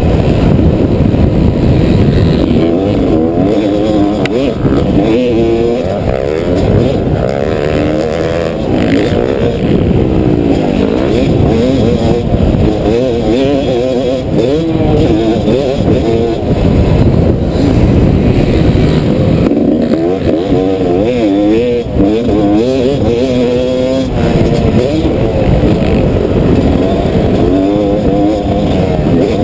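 Yamaha YZ250 two-stroke motocross bike engine under hard riding, its pitch repeatedly rising and dropping through throttle and gear changes.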